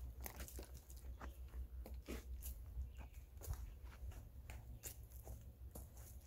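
Faint footsteps crunching and rustling through forest-floor undergrowth, with irregular clicks a few times a second over a low rumble.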